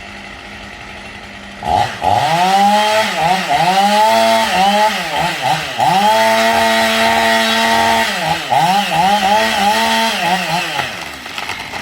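Two-stroke chainsaw engine being revved over and over, its pitch rising to a high steady scream, holding, then dropping back, repeatedly. It starts loud about a second and a half in and tapers off near the end.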